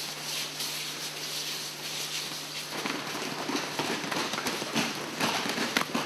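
Bare feet of a group running on gym mats: a busy, irregular patter of footfalls slapping the mat, growing denser and louder from about three seconds in.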